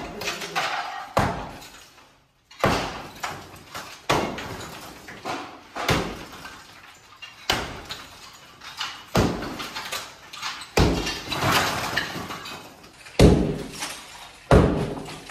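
Sledgehammer blows on a brick wall being broken out, one heavy strike every one to two seconds, each with a short crash of breaking brick. There is a brief pause about two seconds in.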